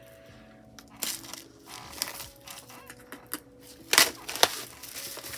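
An album box and its packaging handled and opened by hand: crinkling and rustling of plastic and paper with scattered clicks, and a sharp snap about four seconds in.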